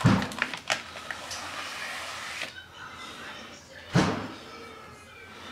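Paper and a plastic document sleeve rustling as the manual is slid out of the sleeve on the side of the ventilator cabinet, with two thumps, one at the start and one about four seconds in.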